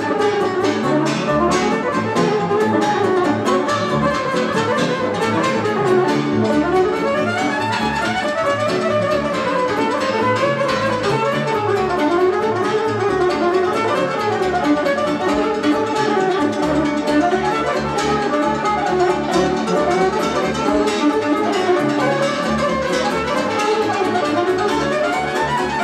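Live lăutari music: an electric violin leads a wavering, ornamented melody over the struck strings of a concert cimbalom, played with hammers.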